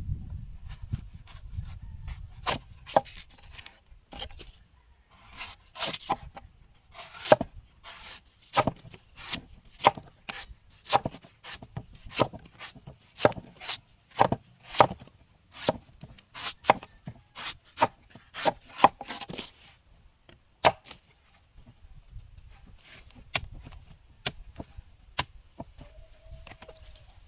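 A blade chopping into a young coconut: a long series of sharp chops, about one or two a second, thinning out to a few scattered strokes near the end.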